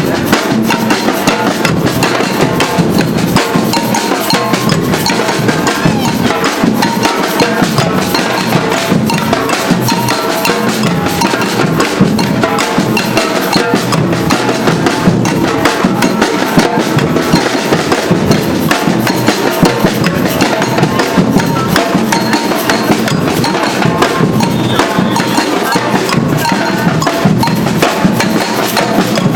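Batucada street drum band playing a loud, continuous, driving rhythm on bass drums and snare drums.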